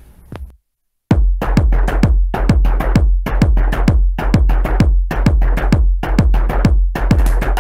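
Electronic title music: a drum-machine beat of roughly four hits a second over a deep bass, starting after about a second of silence.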